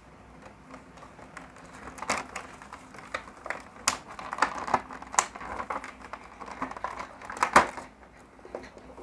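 Stiff plastic packaging being handled: a clear plastic cover pulled off a black plastic blister tray, giving a run of sharp clicks and crackles, the loudest near the end.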